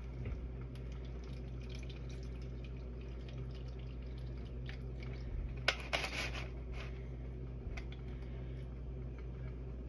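Water being added to the bottom of a disposable aluminium baking pan, dripping and trickling, with a brief louder splash about six seconds in. A steady low hum runs underneath.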